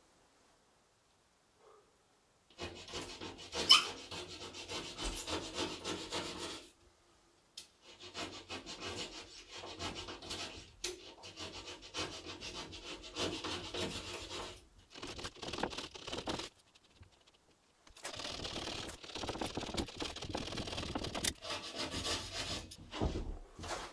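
Plasterboard being scraped at its edge in three long stretches of quick, repeated rasping strokes, with short pauses between them and one sharp knock about four seconds in.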